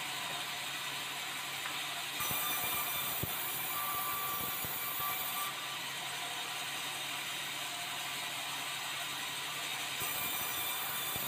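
Sawmill saw running steadily while boards of red meranti wood are fed through it. The cutting sound brightens about two seconds in until past the middle and again near the end, with a few knocks of wood on the bench.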